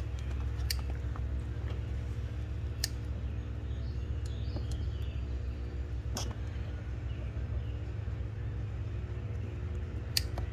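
Steady low hum of a motor running, with four sharp clicks spread across it, one about a second in and one near the end.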